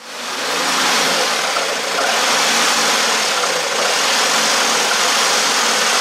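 Electric jigsaw cutting through a 5 mm wooden board, running steadily as the blade saws along the cut.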